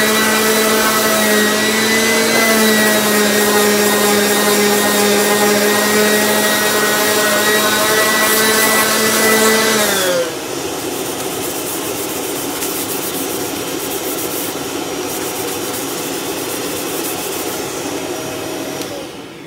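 Handheld power sander with a small disc running steadily with a high whine as it sands a cricket bat's wooden handle. About halfway through the whine winds down, and a rougher, lower machine noise carries on until it too winds down near the end.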